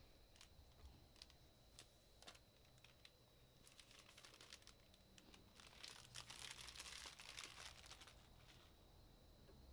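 Faint crinkling and crackling of thin plastic protective film being peeled off the back of an iPad Air 4, with scattered clicks and a denser stretch of crackling about six to eight seconds in.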